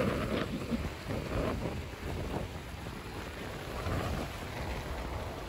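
Wind buffeting the microphone as a low, steady rumble, over the splashing and sloshing of shallow seawater as a loaded wheelbarrow and wading feet push through it.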